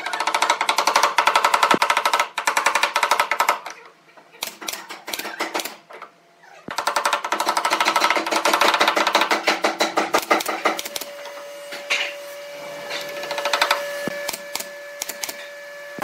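Wooden mallet tapping pine louver slats into a door frame: two long runs of rapid knocks, with slower scattered knocks between them and toward the end, where a steady tone is heard under them.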